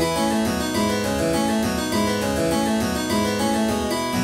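Background music: an instrumental piece of quick, evenly running notes, with no speech over it.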